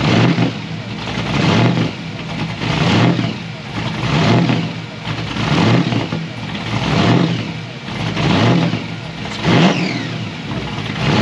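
Supercharged LS1 V8 of a VN Holden Commodore held at high revs during a burnout, its note swelling and dipping in a steady cycle about every second and a half.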